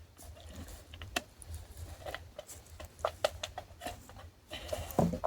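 Scattered, irregular light crackles and clicks, several a second at times, over a low rumble.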